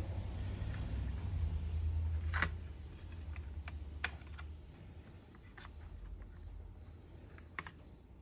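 Sharp clicks and taps of small trunk-latch parts being handled and worked apart, four or so spread through, over a low hum that fades about three seconds in.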